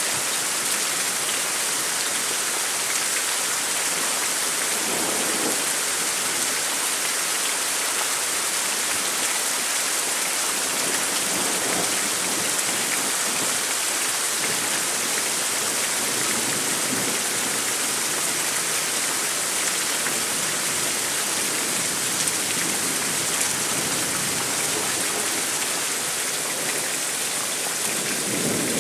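Heavy rain falling steadily in a thunderstorm: an even, unbroken hiss of rain.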